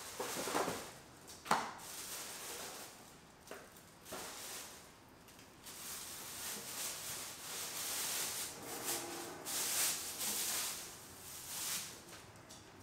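Household items being taken out of a paper shopping bag and set down on a sheet of paper on a hard floor: a few sharp knocks in the first four seconds, then stretches of paper rustling.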